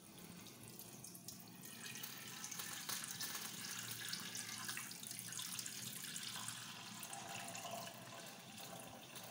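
Milk pouring from a pouch into a metal saucepan: a steady splashing stream that grows louder about two seconds in and eases off near the end.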